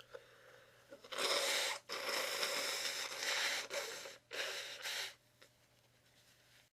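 Forceful blasts of breath through the nose into a tissue: three noisy bursts, the middle one about two seconds long.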